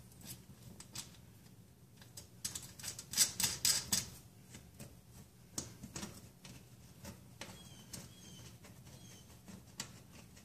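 Small metal clicks and taps of hex nuts and ring terminals being fitted by hand onto the terminal-block studs of an electric range, with a quick flurry of clicks about three seconds in.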